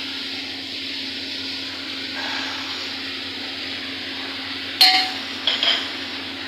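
A metal spoon stirring gravy in an aluminium pot on a gas stove, over a steady hiss. Near the end the spoon clangs sharply against the pot with a short ringing note, followed by two lighter knocks.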